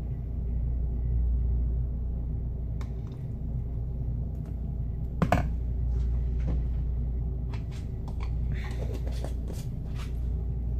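A metal tablespoon scooping mayonnaise and clicking against a plastic mixing bowl, with one sharp knock about five seconds in and a run of small clicks near the end, over a steady low rumble.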